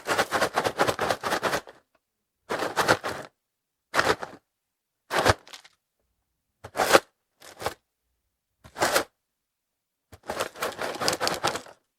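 Full cardboard cereal box with a plastic bag of corn flakes inside being shaken, the flakes rattling and the bag crinkling. It comes in eight bursts with silence between: a run of quick shakes at the start, six short shakes, and another run of quick shakes near the end.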